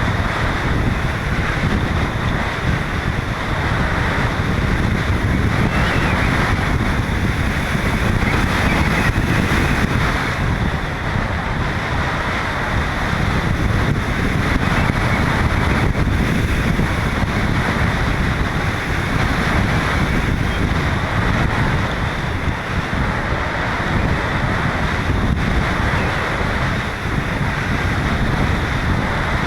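Strong wind rushing over a GoPro camera's microphone: a steady, loud rumbling rush of wind noise with no breaks.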